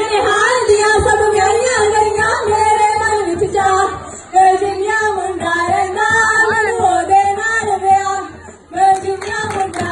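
Women singing a Punjabi folk song for giddha dancing, in sung phrases that break off briefly about four seconds in and again near the end.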